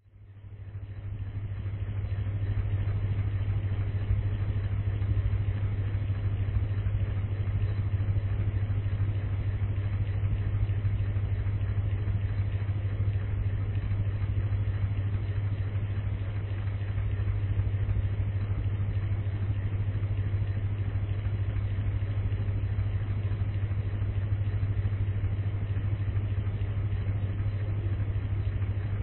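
Electric fan running steadily: an even rush of air over a strong low motor hum, fading in over the first couple of seconds.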